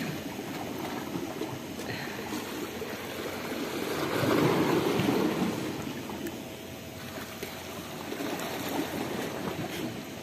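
Small sea waves washing and lapping against a rocky shoreline, with one louder wash about four seconds in.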